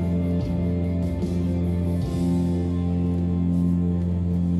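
Recorded worship song with guitar, a steady held chord.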